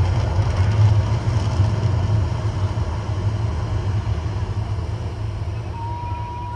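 Deep, steady rumble from the Mirage volcano show's eruption, slowly fading away. A short, steady high tone sounds near the end.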